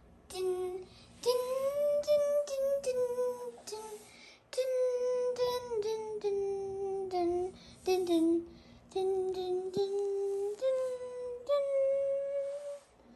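A high voice singing a wordless tune in long held notes, in several short phrases with brief pauses between them.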